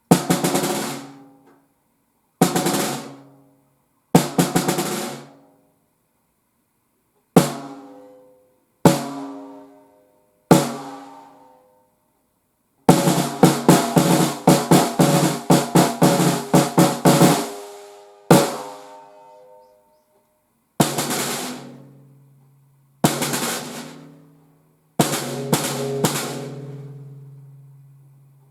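Gretsch 14 x 6.5 inch walnut snare drum with maple inlay, played alone: single sharp hits and short groups of strokes a few seconds apart, each ringing out for a second or so, with a fast roll of rapid strokes lasting about four seconds near the middle. A low ringing tone hangs under the later hits.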